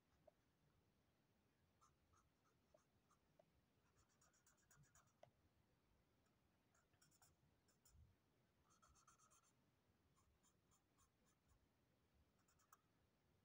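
Faint scratching of a black marker tip drawn across paper in short, quick strokes, coming in bursts with pauses between them.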